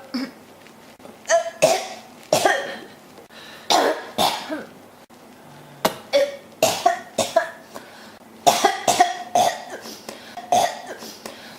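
A person coughing repeatedly in a coughing fit: about twenty short, harsh coughs, many of them in quick runs of two to four with brief gaps between.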